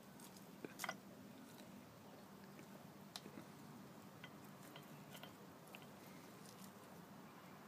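Near silence with faint, scattered small clicks and scuffs, the clearest about a second in: the light patter and scratch of a kitten's and a small dog's paws and claws as they play on roofing felt and stones.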